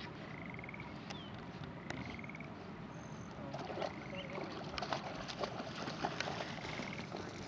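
A dog wading and splashing through shallow pond water, busiest from about halfway through. Behind it, a frog calls again and again with short rising trills every couple of seconds.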